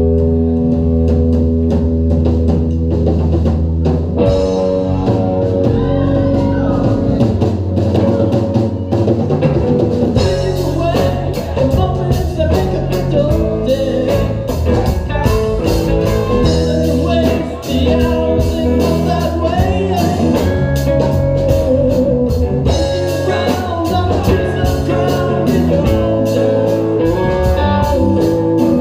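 Live rock band playing: electric guitar chords over bass and drum kit. The drums and cymbals grow much busier about ten seconds in.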